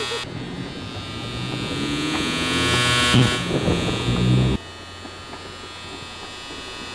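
Electric hair clippers buzzing steadily, then cutting off abruptly about four and a half seconds in.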